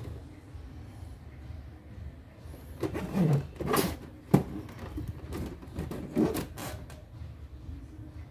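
Plastic desk clock being handled on a tabletop: irregular light knocks and scrapes of its hinged plastic panels, with a sharp click about four seconds in.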